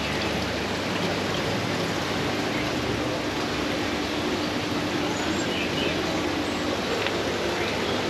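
Steady rush of trickling, splashing water from aquarium filters and aerators, with a faint low hum through the middle and faint voices in the background.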